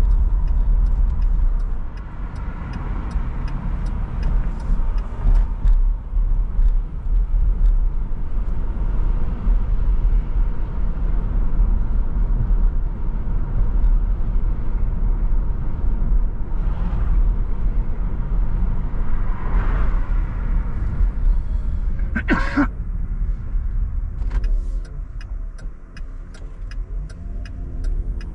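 Car driving on city streets: steady low road and engine rumble. A brief, sharp pitched sound comes about 22 seconds in, and a light regular ticking is heard near the start and again near the end.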